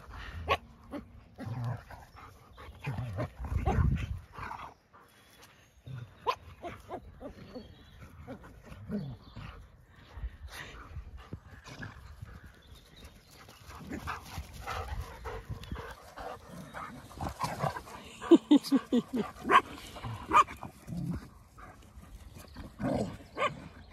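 Several dogs play-fighting, a German Shepherd with a black puppy and small terrier-type dogs, giving scattered barks and yaps. A quick run of short, sharp barks about three-quarters of the way through is the loudest part.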